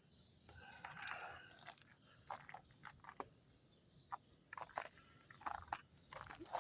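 Faint, irregular crunches and clicks of thick ice, a dozen or so short sharp cracks with no steady rhythm.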